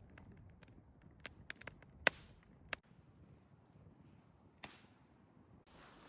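A few scattered sharp clicks and knocks, the loudest about two seconds in, then a soft hiss near the end.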